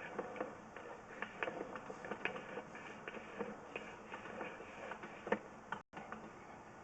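Irregular light clicking and ticking, several a second and uneven in strength, with one sharper click about five seconds in, from a sewer inspection camera's push cable and reel being worked.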